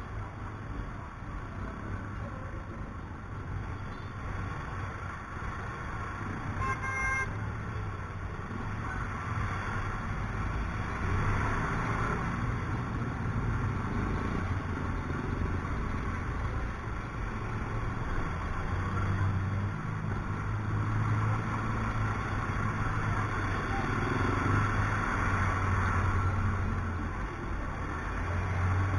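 Steady engine and traffic noise from riding a Yamaha Mio i 125 scooter in slow city traffic, the low engine hum rising in the second half. A vehicle horn gives one short toot about seven seconds in.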